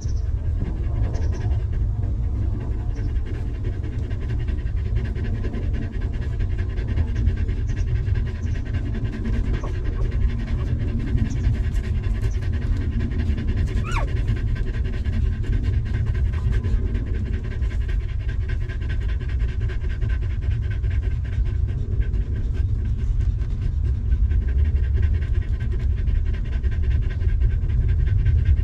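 Nursing mother dog panting steadily, with one brief rising squeak about halfway through.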